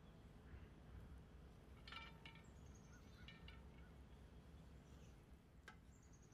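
Near silence: faint room tone with a few faint high chirps that step downward, a soft ringing tap about two seconds in and a faint click near the end.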